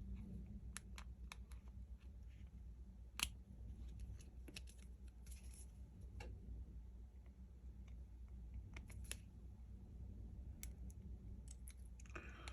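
Faint, irregular clicks and ticks of small repair tools against a smartphone's parts during a screen replacement, about a dozen spread out, the loudest a bit over three seconds in, over a low steady hum.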